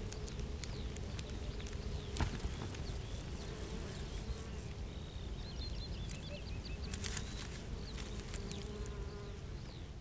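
Flying insects buzzing as a steady drone, with a few scattered clicks and some faint high bird chirps about halfway through.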